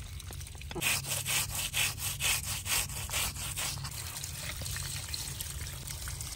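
Water running from a tank tap over a whole fish while hands rub and scrub it under the stream: a quick run of scrubbing strokes, about five a second, for roughly three seconds starting about a second in, then only the water running.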